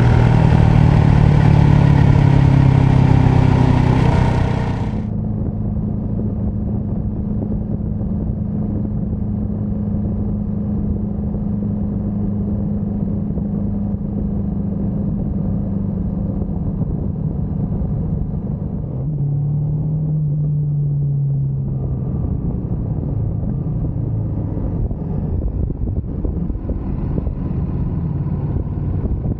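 Motorcycle engine running on the move, with wind and road noise. About five seconds in the sound turns duller and quieter, and from then on a steady engine note holds, easing off and picking up again about two-thirds of the way through.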